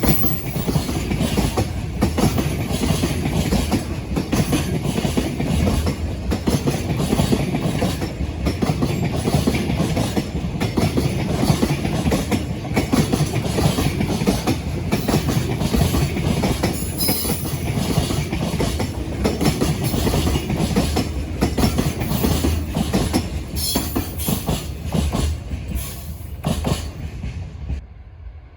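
Container freight train passing close by, its wagons clattering steadily over the rail joints. The noise falls away near the end as the last wagons go by.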